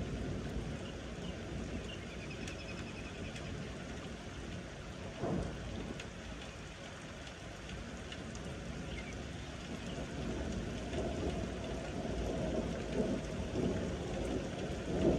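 Rain falling steadily during a thunderstorm, with thunder rumbling that grows louder in the second half. A short thump about five seconds in.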